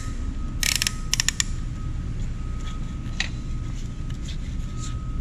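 A few sharp metallic clicks from a ratcheting band-type piston ring compressor as it is tightened around a piston, squeezing the rings into their grooves. A cluster of clicks comes about a second in and one more near the middle, over a steady low hum.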